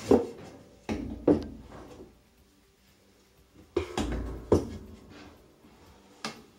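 Wooden boards knocking and clunking against each other and the washer as a length of 1x2 is worked into a twisted steel cable puller. There are about six separate sharp knocks, with a quieter spell in the middle.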